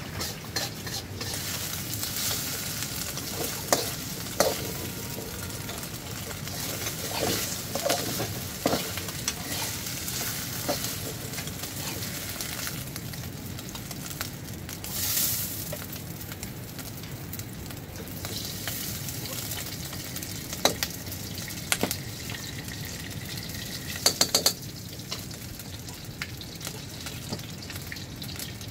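Food sizzling in a pan: a steady crackling hiss, with scattered sharp clicks and knocks throughout.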